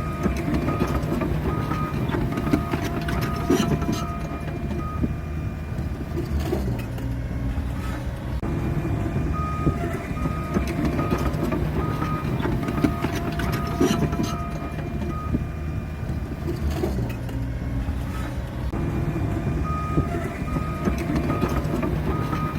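Bulldozer's diesel engine running steadily while its reversing alarm beeps, about two beeps a second, in stretches that pause for a few seconds twice.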